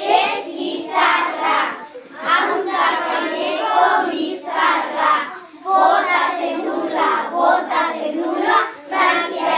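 A group of young children singing together in unison, in phrases of a couple of seconds with short breaks between them.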